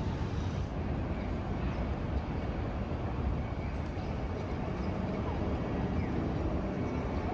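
Open-air city ambience: a steady low rumble of distant traffic, with faint voices of passers-by.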